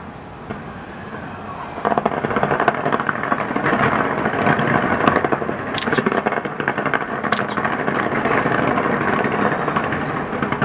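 Fireworks display bursting in a dense, rapid crackle of bangs, growing louder about two seconds in.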